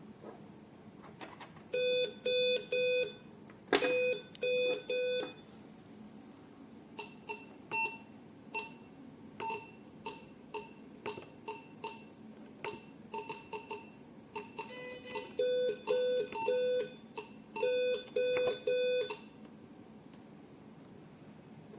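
E15 multi-parameter patient monitor sounding its alarm tones: bursts of three quick beeps near the start and again near the end, with a run of single short beeps in between, and an occasional click.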